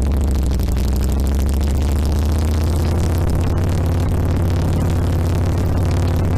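2007 Harley-Davidson Sportster XL1200R's 1200 cc V-twin engine running with a steady, even note, with a dense hiss over it.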